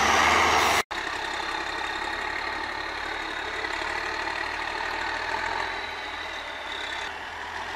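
Off-road trial truck's engine working hard through deep mud, loud at first, then cut off suddenly about a second in and followed by a quieter, steady engine run.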